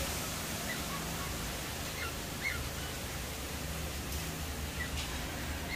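Outdoor garden ambience: a steady hiss of background noise, with a few faint, short bird chirps scattered through it.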